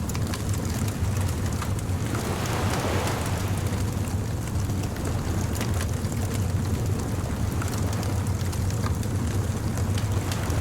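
Beach bonfire crackling with scattered snaps over a steady low rumble of surf, with a wave washing in about two to three seconds in.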